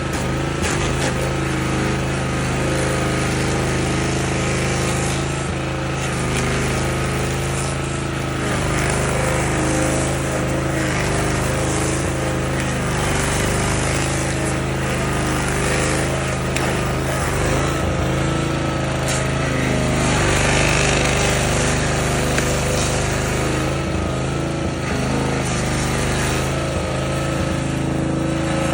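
Stump grinder running at a steady engine pitch, its cutter wheel grinding into a tree stump with a continuous coarse noise over the engine's hum.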